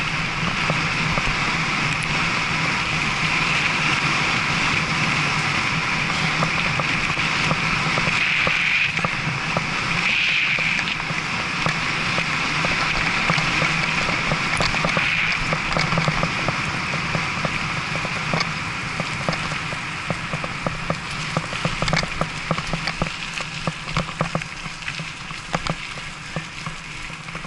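Mountain bike rolling fast over a gravel forest path, with a steady rushing tyre noise and many small rattling clicks that come thicker in the second half as the rushing eases.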